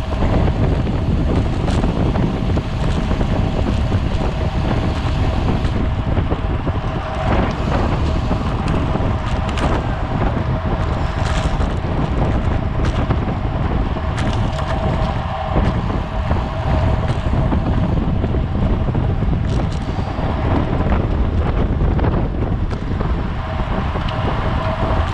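Heavy wind noise buffeting the microphone of a camera on a racing bicycle at speed, with a thin steady tone underneath and a few sharp clicks.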